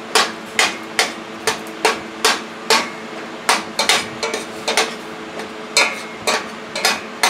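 Metal utensil knocking against a stainless steel saucepan at a steady beat of about two to three clinks a second, as ramen noodles that are still hard are stirred and broken up.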